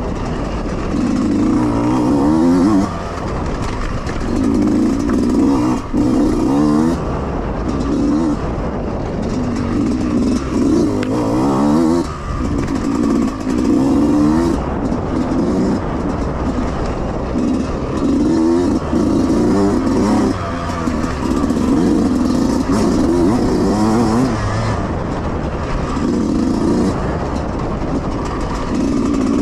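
Yamaha YZ125X two-stroke dirt bike engine under race load, revving up in repeated surges every couple of seconds and dropping back between them as the throttle is worked, with a few sharp knocks over it.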